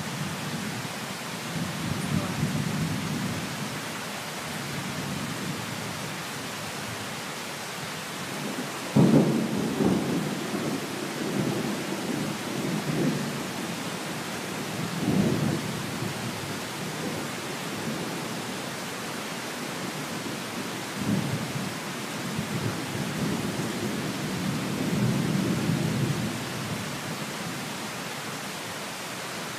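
Thunderstorm: steady rain with thunder rumbling. The thunder comes as three sharper claps about nine, fifteen and twenty-one seconds in, the first the loudest, each rolling off into a low rumble, with slower swells of rumble near the start and near the end.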